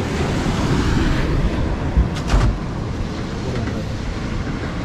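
Wind buffeting the microphone, a rough, uneven rumble, over a steady wash of noise from the sea. Two short knocks come about two seconds in.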